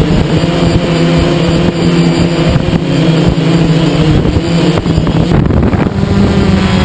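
DJI Phantom quadcopter's motors and propellers whirring steadily at a constant pitch, heard from the camera carried on the drone, with rough wind buffeting on the microphone.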